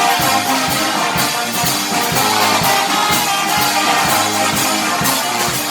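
Music with a steady beat and held melodic notes.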